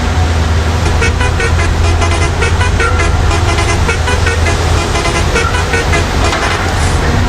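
Toy truck sound effects: many short horn-like toots over a steady low engine hum, with the toots starting about a second in.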